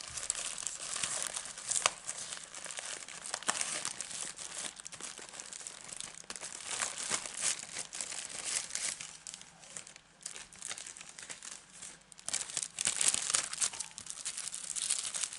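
Plastic mailer bag and cellophane packaging crinkling and crackling as a parcel is opened and the plastic-wrapped clear stamps inside are pulled out, with some tearing. It quiets for a moment about two-thirds through, then crinkles busily again near the end.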